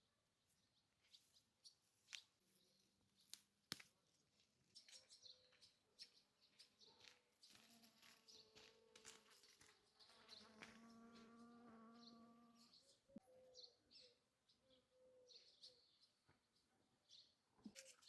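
Near silence, with faint scattered clicks and high chirps and, in the middle, a faint steady buzz lasting about five seconds, like an insect in flight.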